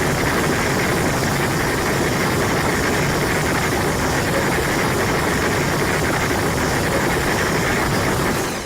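Godzilla's atomic breath sound effect from the 2002–03 films: a loud, steady rushing hiss, heavy in the low end, that dies away in the last half second.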